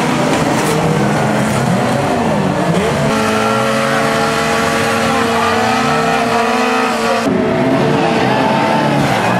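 Banger racing cars' engines running hard, several at once, their pitch rising and falling with the revs. From about three seconds in, one engine holds steady revs for a few seconds before the sound changes abruptly.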